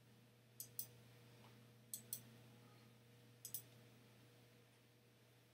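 Computer mouse double-clicking three times, about a second and a half apart, faint, over a faint steady low hum.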